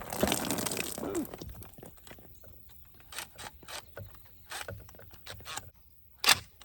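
A short noisy rush, then scattered clicks and knocks of plastic pool fittings being handled and hand-tightened on an Intex saltwater chlorinator, ending with one sharp click.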